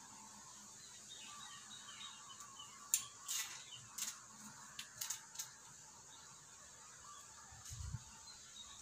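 Faint outdoor ambience: a steady high hiss with faint distant bird calls. Several sharp clicks come between about three and five and a half seconds in, and a low thump comes near the end.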